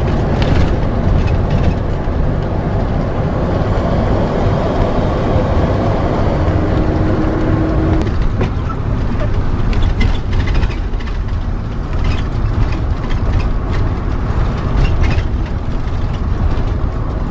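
Motorhome driving on a winding road, heard from inside the cab: a steady low engine and tyre rumble. About halfway through, scattered light clicks and rattles join it.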